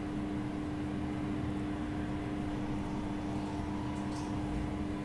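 A steady low hum with one constant tone over a faint hiss, like an appliance or electrical hum in the room. A faint brief rustle about four seconds in, as hands work through hair.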